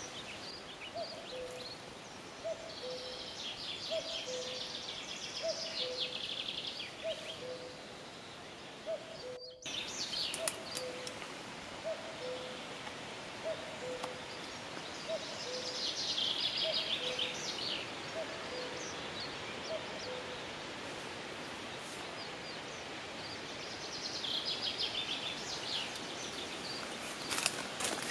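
Forest birdsong. A low two-note hooting call, the second note lower than the first, repeats about once a second, while a songbird sings in short bursts three times.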